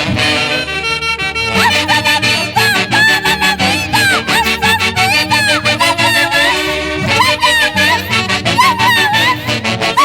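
A Huancayo orquesta playing Santiago festival music: wind instruments carry a bending, gliding melody over a steady quick beat.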